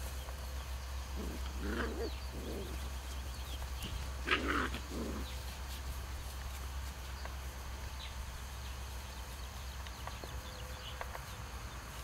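Young puppies growling and grunting in two short bouts, about a second in and about four seconds in, the second louder, as they bite and tug at a piece held out to them.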